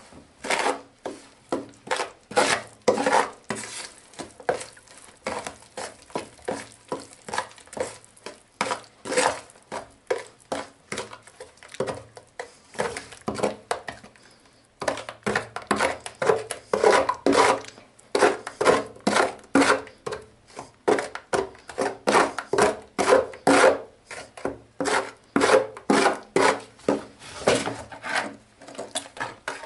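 Gloved hands mixing and kneading wet cement in a plastic basin. The strokes scrape and rub steadily, about two a second, with a short lull about halfway through.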